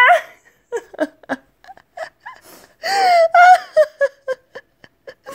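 A woman laughing under her breath in short breathy bursts, then a longer held vocal sound about three seconds in.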